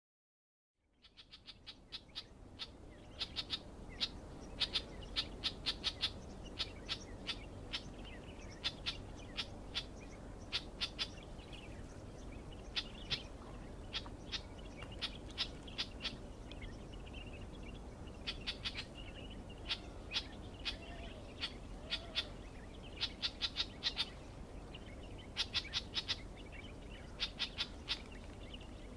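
Clamorous reed warbler calling: short, sharp notes repeated in quick clusters of several, with brief pauses between clusters.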